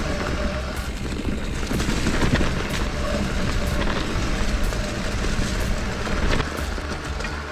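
Mountain bike riding fast down a stony dirt trail: wind rumbling over the helmet camera's microphone, with tyre noise and scattered sharp ticks of the bike rattling over stones.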